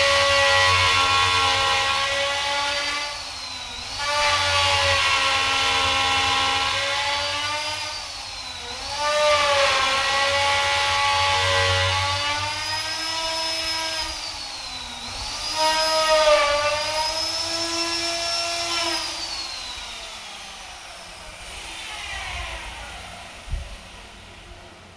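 Electric power tool running on wood. Its motor whine drops in pitch each time it bites into the wood and recovers in between, several times. Near the end it winds down and fades.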